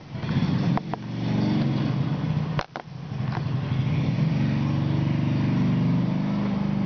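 An engine running steadily with a low hum, broken by a couple of brief clicks.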